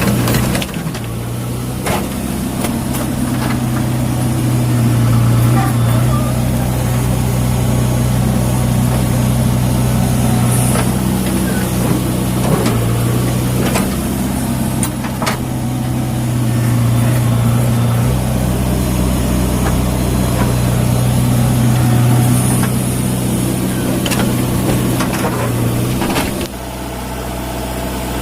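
JCB 3DX backhoe loader's diesel engine running under working load, swelling and easing in level every few seconds, with a few sharp knocks. It drops back toward idle near the end.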